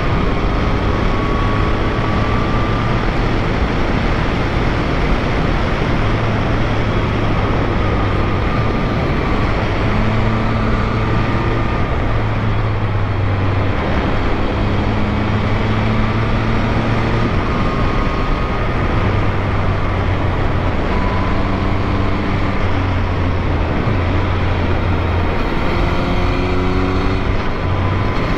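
Yamaha MT-09's three-cylinder engine running on the move, its pitch stepping and sliding up and down with throttle and gear changes, under a heavy rush of wind and road noise.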